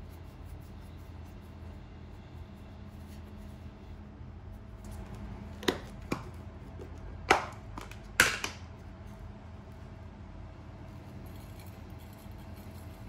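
Kitchenware set down and handled on a countertop: four sharp knocks around the middle, the last two loudest, as a ceramic dish and a plastic container of breadcrumbs are put in place. Near the end there is a faint rustle of dry breadcrumbs pouring into the dish, all over a steady low hum.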